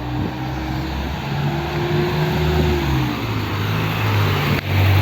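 A car engine running close by in street traffic, a low hum under road noise that grows a little louder over the few seconds.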